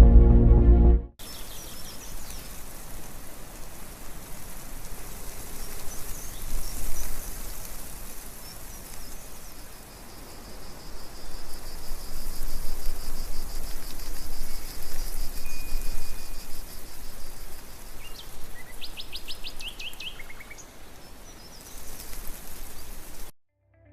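A music track ends abruptly about a second in, giving way to open-air ambience: a steady hiss with scattered high bird chirps, a rapid pulsing trill for several seconds in the middle, and a quick run of stepped notes near the end. The ambience cuts off suddenly just before the end.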